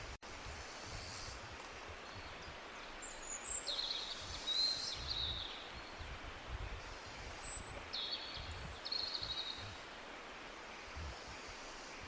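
Steady rush of a jungle waterfall with tropical birds calling over it: high chirps and trills about 3 seconds in and again about 7 seconds in. The sound drops out for an instant near the start.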